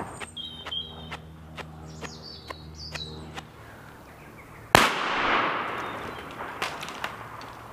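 A single shotgun shot about two-thirds of the way in, fired up into pine trees, with its report echoing and dying away through the woods for about two seconds.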